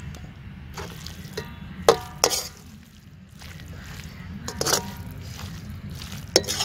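Steel ladle scraping and clanking against a large steel karahi while stirring a thick egg-and-potato curry, each knock ringing briefly. The loudest clanks come about two seconds in and again near the end.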